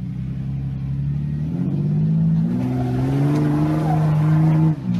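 Lifted Jeep Cherokee's engine revving hard under load as it climbs a steep rock ledge. The engine note rises about two seconds in, holds high, then drops off suddenly just before the end.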